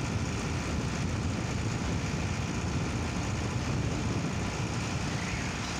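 Steady low rumble of a vehicle's engine and road noise while driving along at a constant pace.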